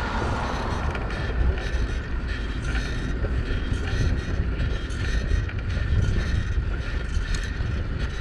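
Wind rumbling on the microphone while riding a big-tyred single-speed cruiser bicycle, with light creaks and rattles from the bike.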